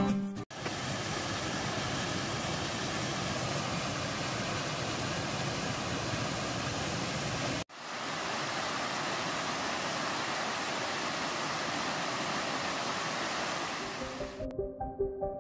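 Mountain stream rushing over rocks: a steady, even rush of white water, with a brief cut to silence halfway through. Guitar music fades out at the very start, and electronic music comes in near the end.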